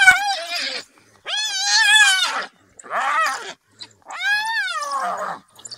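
High-pitched squealing calls from a scuffle between African wild dogs and a spotted hyena over a carcass. There are four long squeals in quick succession, each rising and then falling in pitch, with short gaps between them.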